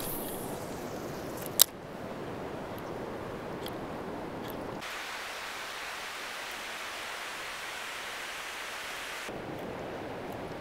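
Steady rush of a shallow river running over gravel and stones, with one sharp click about one and a half seconds in. Midway, for about four seconds, the rush turns thinner and hissier, then returns to its fuller sound.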